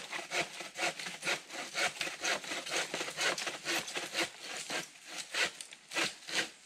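Hand saw cutting a log for firewood: quick, even back-and-forth strokes, about three a second, easing off near the end.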